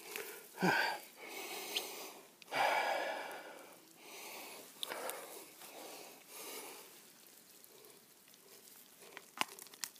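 Wet moss rustling and tearing as a clump is pulled up out of the bog by hand, in several short bursts, with a few sharp clicks near the end.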